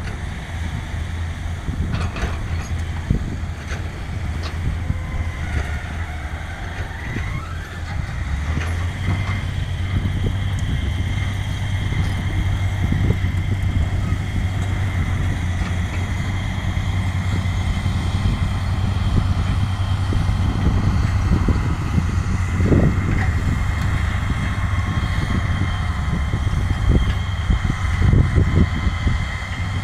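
Dump truck's diesel engine running steadily while the tipper bed comes down, growing louder about eight seconds in and pulling as the truck drives off, with a steady whine over the engine note and scattered clanks.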